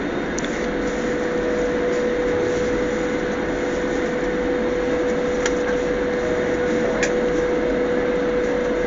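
Airliner cabin noise in flight, heard from inside the cabin as the plane descends to land: an even rush of engine and air noise with one steady hum in it.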